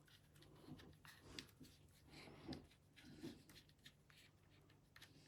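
Faint scraping and small clicks of a screwdriver and hands working the four screws out of a small portable radio receiver's case, with a couple of slightly louder ticks.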